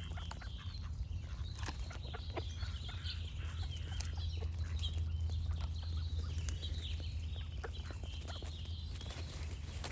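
Ducks quacking and chattering, mixed with small birds singing in many short chirps, over a steady low hum.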